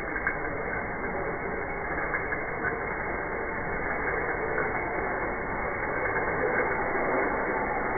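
Ice-gola shaving machine grinding a block of ice against its blade, slowed down so that it comes through as a steady, dull, muffled grating noise with faint scrapes.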